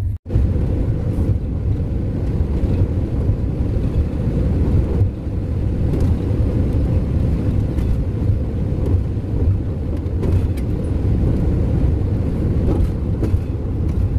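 Van driving on a paved road, heard from inside the cab: a steady low rumble of engine and road noise. The sound cuts out for an instant just after the start.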